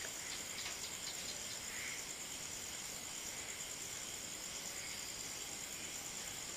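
Crickets chirping in a steady, high, pulsing trill.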